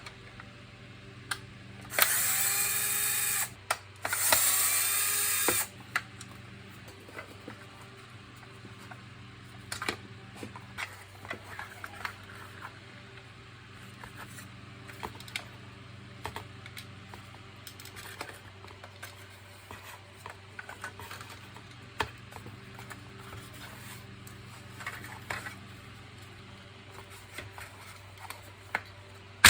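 Electric screwdriver or drill-driver running in two bursts of about a second and a half each, a couple of seconds in, turning screws in a vacuum cleaner's plastic housing. Light clicks and knocks of plastic parts being handled follow.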